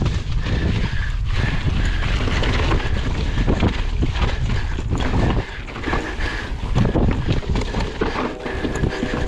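Mountain bike descending a rough trail at speed: wind rushing over the microphone, with a constant rattle and frequent knocks from the bike and tyres hitting bumps.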